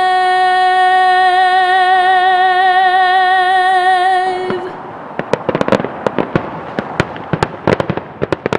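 A woman's voice holds one long sung note with a slight vibrato and cuts off about four seconds in. Fireworks then crackle, with many sharp, irregular pops over the last few seconds.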